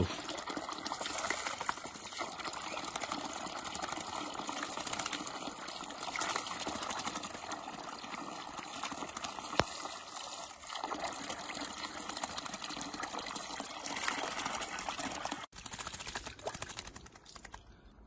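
Tap water pouring in a steady stream into a plastic basin of water, with a crested myna bathing in it. The water noise drops away suddenly near the end.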